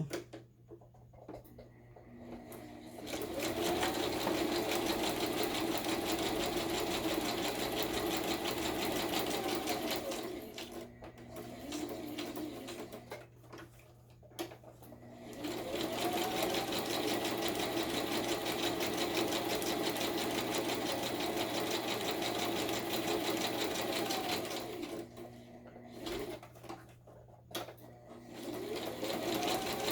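Electric sewing machine stitching a zigzag seam through paper. It runs in two long stretches of several seconds, its motor whine rising as it speeds up and falling as it slows, with a short burst between them and another run starting near the end. In the gaps there are small clicks and handling.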